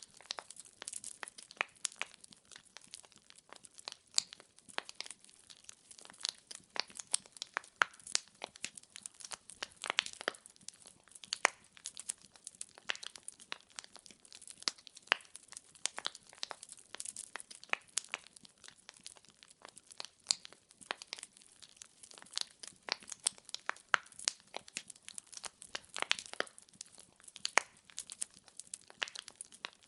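Wood fire in a fireplace crackling, with frequent irregular sharp pops and snaps of burning firewood over a faint hiss.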